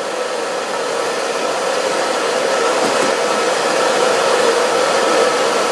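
Steady whirring of an electric blower, with a constant hum in it.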